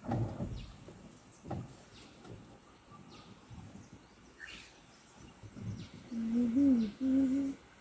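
A few short low thuds and faint bird chirps, then a wavering low-pitched call near the end from the elephant herd.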